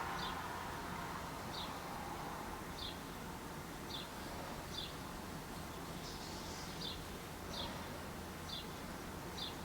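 A bird outdoors chirping, short high chirps repeated about once a second, over a faint steady background hum.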